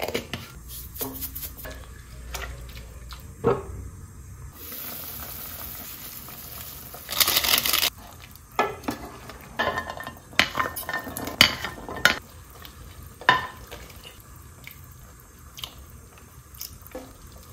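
A ladle stirring stew in a pot, knocking and scraping against the pot, with a run of clattering knocks in the middle. There is a short rush of noise about seven seconds in.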